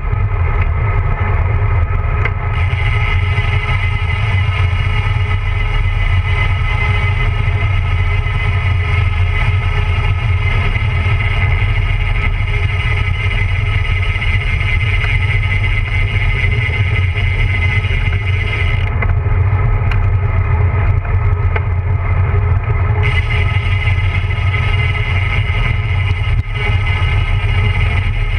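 Wind rushing over the microphone and tyre rumble from a road bicycle descending, heavy and steady throughout. A thin, steady high whine sits over most of it, cutting out about two-thirds of the way through and returning a few seconds later.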